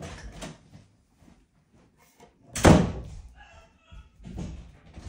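A door shutting with one loud thud about two and a half seconds in, among softer knocks and bumps.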